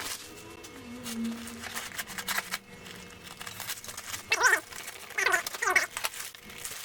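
Clinks, rattles and knocks of heavy steel roller chain and packaging being handled as it is unpacked, with an animal calling a few times in the background past the middle.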